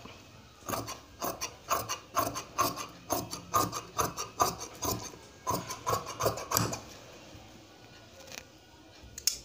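Large tailor's shears cutting through fabric: a quick run of crunchy snips, about three a second, that stops near the end.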